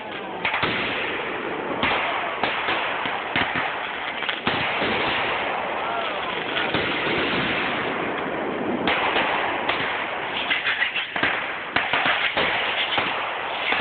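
Fireworks going off: repeated sharp bangs of shells bursting overhead, turning into a fast run of crackling pops from about nine seconds in.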